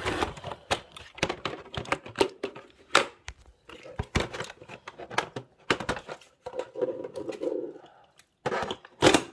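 Irregular clicks, knocks and rustling of the plastic parts of a robot vacuum being handled and fitted, with a louder knock cluster near the end.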